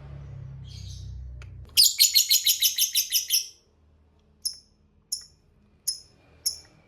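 Lovebird giving a rapid shrill chattering run of about a dozen notes, the prized 'ngekek' call, followed by four single short high chirps.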